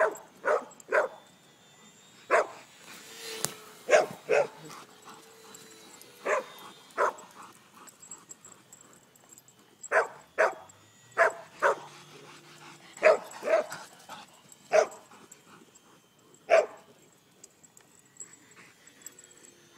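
Dogs barking in short, separate barks, singly or two or three close together, scattered throughout with quiet gaps between: excited barking as they chase a small radio-controlled airplane.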